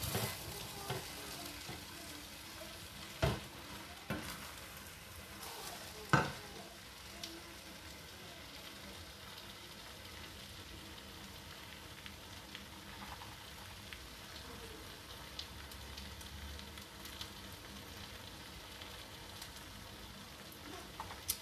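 Creamy spaghetti sauce simmering in a stainless steel pot on the hob, a faint steady sizzle. A wooden spatula knocks against the pot a few times, about three, four and six seconds in.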